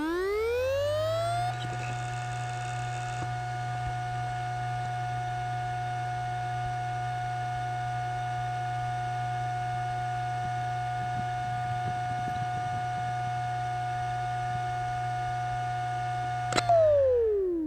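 Computer hard drive spinning up with a rising whine, then running at steady speed with a steady whine over a low hum. Near the end there is a click, and the drive spins down with the whine falling in pitch.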